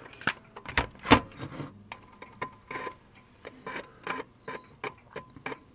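Amiga 500 floppy disk drive clicking and ticking irregularly as it reads the boot disk, with a few louder knocks in the first second or so.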